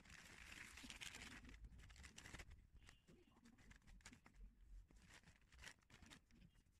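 Faint rustling of a sheet of self-adhesive PU leather being handled and smoothed by hand, strongest in about the first second and a half, followed by a few scattered faint ticks.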